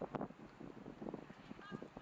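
Distant, indistinct shouting from players and spectators at a youth football match, with short high calls near the end.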